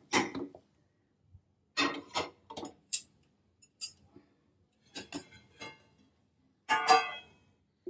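Metal cookware clinking and clanking: pot tongs gripping a pot and the pot being set down on a tawa over the gas burner, a few separate knocks. About seven seconds in comes the loudest clank, with a brief ring, as a steel lid goes onto the pot.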